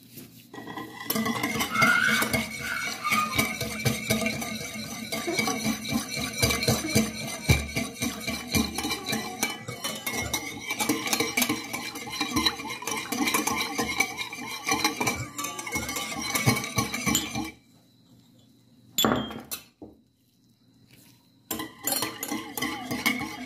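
Metal wire whisk rattling quickly against a glass bowl as yeast and sugar are whisked into water to dissolve them. The whisking stops about three-quarters of the way through, and starts again shortly before the end.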